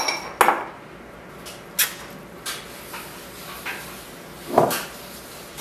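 A few scattered knocks and clatters of kitchen things being handled on a wooden table. There is a sharp knock at the start, a couple more within the first two seconds, and a louder clatter about four and a half seconds in.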